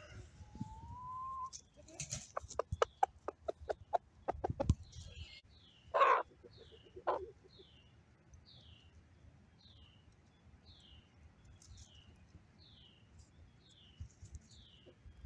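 Rooster foraging close by: a rapid run of clicks, then two loud clucks about six and seven seconds in. Behind it a songbird repeats a short, high, falling note over and over.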